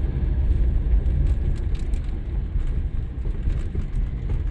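Steady low rumble of road and engine noise inside a moving car's cabin, with a few faint light ticks.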